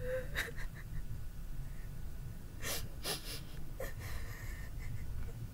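Woman crying: a few short, sharp breaths, most of them between about two and a half and four seconds in, over a low steady hum.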